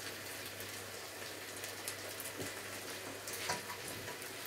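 Minced beef chilli sizzling softly in a frying pan over a gas flame: a steady hiss with light crackles, and a couple of faint ticks.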